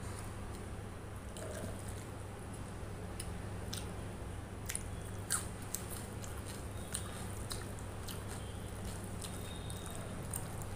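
Fingers mixing rice with chicken curry gravy on a plate: scattered soft wet squishes and sticky clicks, the loudest about five seconds in, over a steady low hum.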